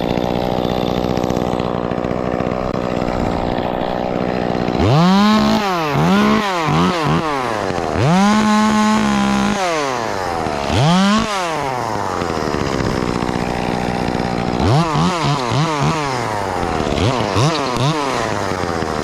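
Gas chainsaw idling steadily, then revved repeatedly in quick throttle blips from about five seconds in. It is held at high revs for a second or so near the middle.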